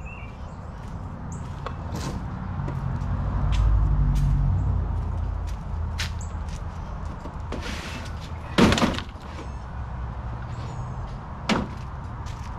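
Plastic tool cases being handled and set down on a truck's compartment shelf: scattered clicks and knocks, the loudest a sharp clack about eight and a half seconds in, another about three seconds later. A low rumble swells and fades underneath about four seconds in.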